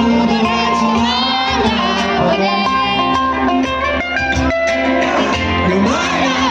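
Live music with a voice singing over instrumental accompaniment.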